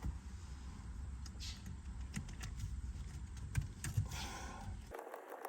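Faint scattered clicks and light taps of hands gripping and twisting the old shift knob off the gear lever's threaded shaft, over a low steady hum. The hum cuts off abruptly near the end.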